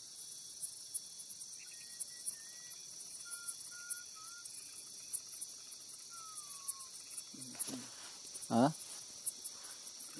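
Dense chorus of insects, a steady high-pitched buzz with rapid ticking above it, and a few faint whistled notes, one sliding downward about six seconds in. A short, louder knock about eight and a half seconds in.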